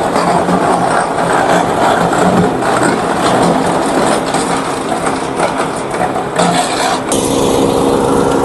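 Engine-driven wood chipper running under load, shredding plant waste with a loud, continuous grinding noise over the engine. About seven seconds in, the engine note turns steadier.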